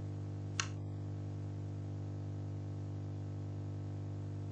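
Steady low electrical hum in the recording, with a single short click about half a second in.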